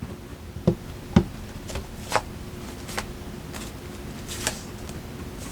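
Tarot cards being handled and laid out, a few light snaps and taps spaced irregularly about a second apart, over a faint steady hum.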